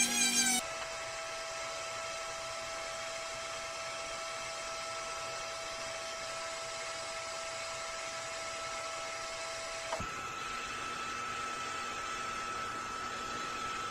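A Dremel-type rotary tool with a burr grinding wood, cut off abruptly about half a second in. A steady mechanical hum with a faint whine follows, and the whine jumps higher in pitch about ten seconds in.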